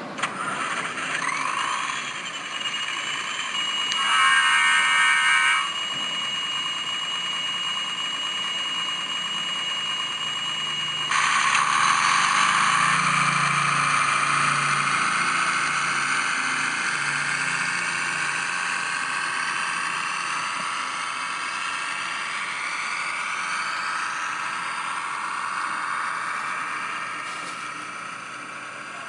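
Digitrax sound decoder in a small model diesel switcher, playing engine sounds through its tiny speaker with a high steady whine. About four seconds in a horn sounds for about a second and a half. About eleven seconds in the engine sound swells and climbs in pitch, then slowly fades.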